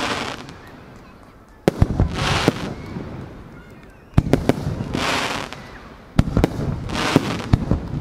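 Fireworks display: clusters of sharp bangs from bursting shells, each with a loud hiss, coming about every two seconds.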